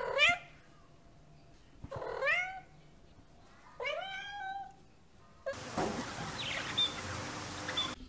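Domestic tabby cat meowing three times, about two seconds apart, each call rising then falling in pitch; the last call is the longest. In the final couple of seconds a steady hiss takes over.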